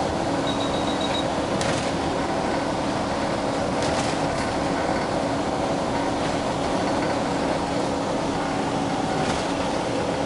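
Inside a moving bus: steady engine and road noise with a low hum, broken by a few short knocks from the cabin.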